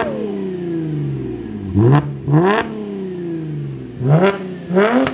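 Holden Commodore SV6's V6 engine through an X-Force cat-back exhaust, revved in short, sharp throttle blips: the pitch shoots up and falls straight back to idle each time, twice in quick succession about two seconds in and again just after four seconds.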